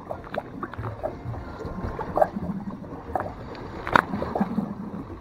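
Scattered knocks and clicks on a fibreglass boat deck over a low, steady wash of water against the hull, with one sharper knock about four seconds in.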